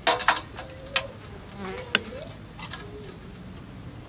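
Metal tea things clinking on a tea tray: a quick run of sharp clinks with a brief metallic ring in the first second, another near two seconds in. A short wavering buzz runs in between.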